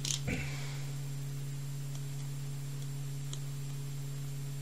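Steady low electrical hum, with a soft knock near the start and one faint tiny tick about three seconds in.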